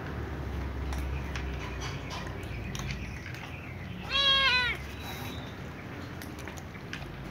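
A cat meows once, a short meow about four seconds in.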